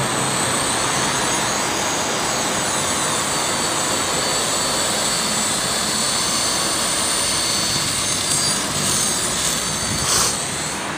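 Walkera 4F180 flybarless micro RC helicopter in flight: a steady high whir and whine from its electric motors and rotors, the pitch gliding up and down as the throttle changes. A brief louder burst of noise near the end.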